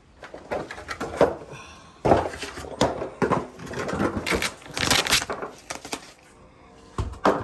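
Irregular knocks and clatter of a five-tier shelf's parts being handled and fitted together, busiest in the first five seconds, with one more knock near the end.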